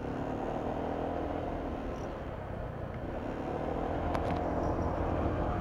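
Motorcycle engine running steadily at cruising speed, with wind and road noise on the microphone; it grows a little louder near the end.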